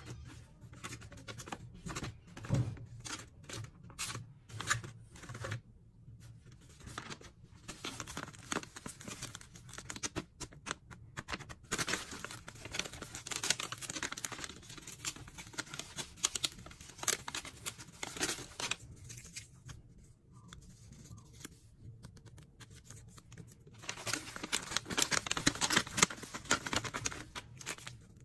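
A handmade paper blind bag being handled and torn open by hand: paper rustling and tearing in irregular bursts. Near the end comes a loud stretch of rustling as the plastic-wrapped toy inside is pulled out.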